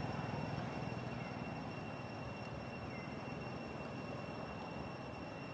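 Steady low rumble of a passing engine, slowly fading, with faint steady high-pitched tones above it.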